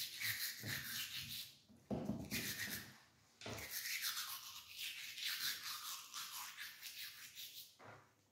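Toothbrush scrubbing teeth with quick back-and-forth strokes, breaking off briefly twice, about two and three seconds in.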